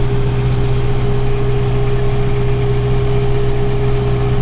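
Tractor engine running steadily at working speed, driving a round baler, with a constant mechanical whine over the low hum while the bale is wrapped.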